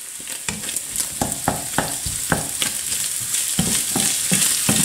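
Diced potatoes and fried minced meat sizzling in a frying pan while a wooden spatula stirs them, a steady high sizzle with repeated scraping strokes about two to three a second.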